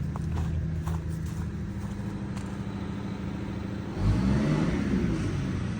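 Wanderlodge RV bus engine idling steadily, then revving up and easing back down about four seconds in.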